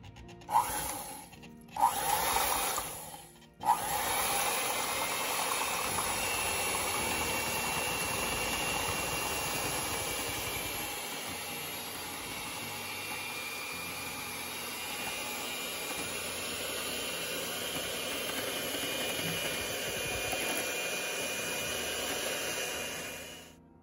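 Electric hand mixer (Hamilton Beach) whisking pudding mixture in a glass measuring cup. It comes on in a couple of short bursts, then runs steadily for about twenty seconds and stops just before the end.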